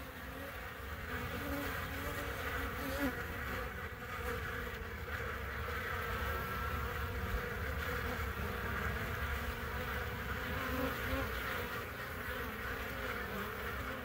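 Honeybees buzzing steadily as they fly in and out of and crowd around a hive entrance.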